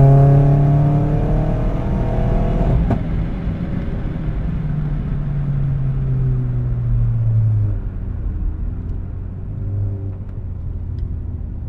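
Vauxhall Astra VXR's turbocharged four-cylinder engine heard from inside the cabin under hard acceleration, its pitch climbing for the first few seconds, with a short click about three seconds in. The engine note then holds steady until it drops and quietens about eight seconds in, falling to a lower, softer running sound as the car comes off the throttle.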